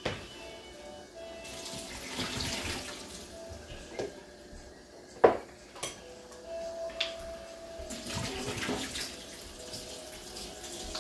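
Kitchen tap water running into a sink in spells, with sharp knocks and clatter of things being handled, the loudest about five seconds in. Faint music plays underneath.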